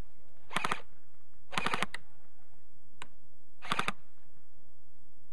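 Airsoft electric gun (AEG) firing short bursts of about three rapid shots, three bursts in all, with one single sharp click between them.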